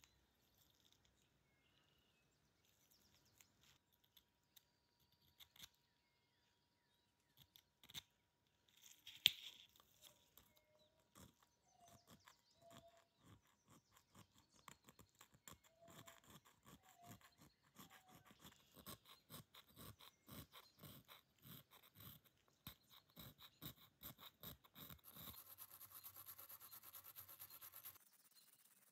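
Faint workshop handling of a small metal lighter with hand tools. Scattered light clicks lead to one sharper click about nine seconds in, then a run of quick scraping strokes, about two a second, ending in a few seconds of steadier hiss.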